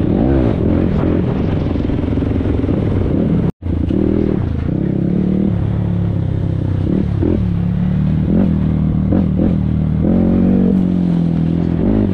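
A vehicle engine running, its pitch rising and falling several times as it speeds up and slows. The sound drops out for an instant about three and a half seconds in.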